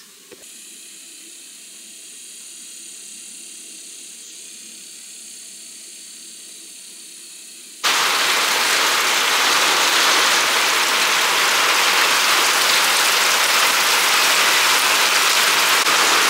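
Heavy rain pouring down, a loud steady hiss that comes in suddenly about eight seconds in; before that only a faint steady hiss.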